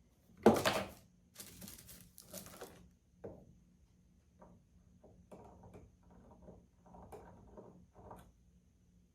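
Wooden parts being handled on a workbench: a sharp knock about half a second in, then scraping and a run of short, light knocks and rustles.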